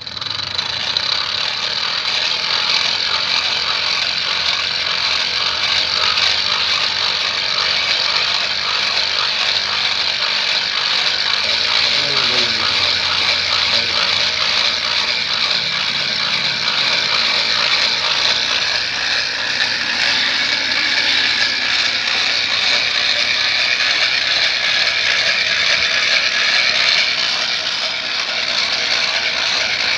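Hand-cranked forge blower being turned steadily: a continuous whirring of its gears with rapid fine clicking and rushing air, fanning a small charcoal fire that heats the clamped joint of two bandsaw blades.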